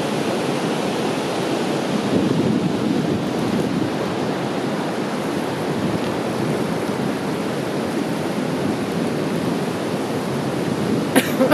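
Alpine river running high with lots of water, a steady rushing roar of water pouring over a weir and through rapids. A short click near the end.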